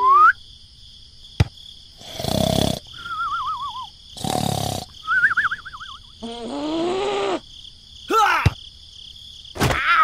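Cartoon snoring sound effects: two raspy snores, each followed by a wobbly whistle, then more sliding cartoon tones; a sharp thump near the end.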